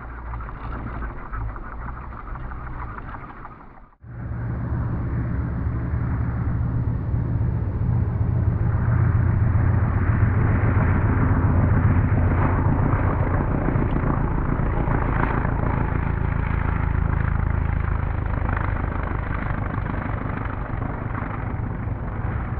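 Engine of a large-scale radio-controlled model biplane running steadily in flight. There is a sudden cut about four seconds in, after which it swells louder through the middle and eases slightly toward the end.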